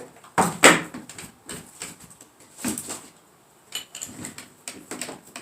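A few irregular knocks and clatters of hand work, the loudest two close together less than a second in, then scattered lighter knocks.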